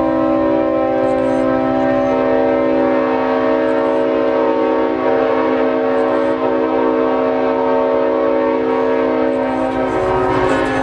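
Horn of the Clinchfield 800, an EMD F7 diesel locomotive, sounding one long chord held for about ten seconds before cutting off near the end, over the low rumble of the train.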